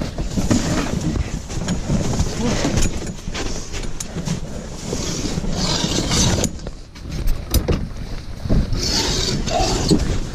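Rustling of an ice-fishing shelter's fabric, with scattered clicks and knocks from its frame and sled as someone moves about inside it.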